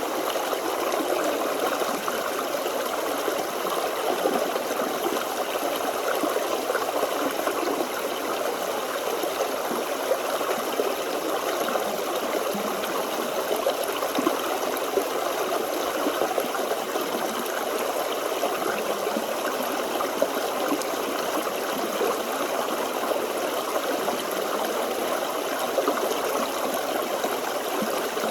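A small forest stream running steadily, water trickling and gurgling over stones.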